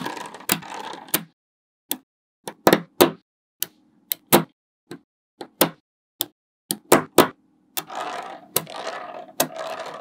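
Small neodymium magnet balls clicking sharply as strips of them snap onto a wall of balls, a dozen or more separate clicks. Near the start and again in the last two seconds the balls rattle as they roll and slide against each other.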